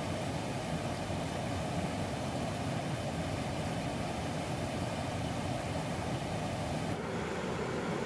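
Steady rush of a mountain stream running over rocky rapids, with the hiss thinning out about seven seconds in.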